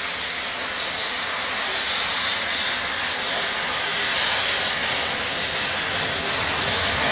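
Steam locomotive BFD HG 3/4 No. 3, a metre-gauge rack-and-adhesion engine, moving off slowly. Steam hisses steadily from its open cylinder drain cocks.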